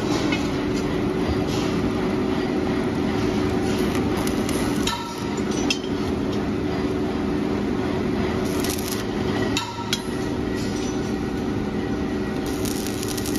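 Steady workshop machinery hum, with a few sharp clinks of steel as pressed gas-cylinder parts are handled, about five seconds in and again near ten seconds.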